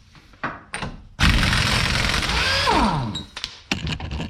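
Impact wrench spinning off the 32 mm rear axle nut for about two seconds, then winding down with a falling whine. A few sharp clicks and knocks of the socket and tool come before and after it.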